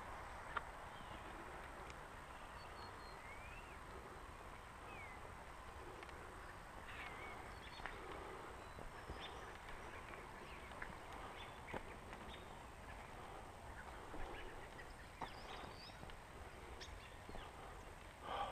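Faint outdoor ambience: a steady low hiss with a few short rising bird chirps and scattered small clicks.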